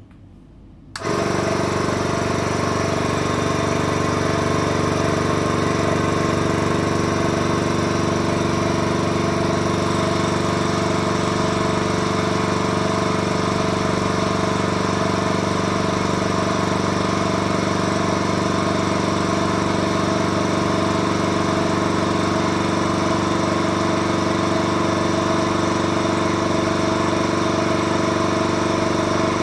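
DIVAC 2.2 diaphragm vacuum pump switching on about a second in and running steadily, pumping the air out of a bell-jar vacuum chamber.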